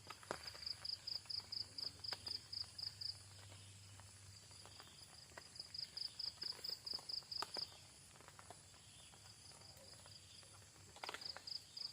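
An insect calling in trains of high, rapid chirps, about six a second, in three bouts, over faint scattered clicks.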